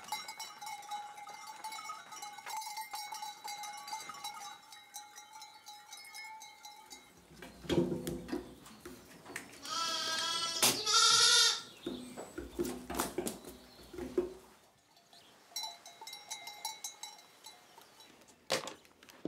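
Goat bells ringing steadily as a herd of goats moves. About ten seconds in comes a loud, quavering goat bleat, with softer bleats around it.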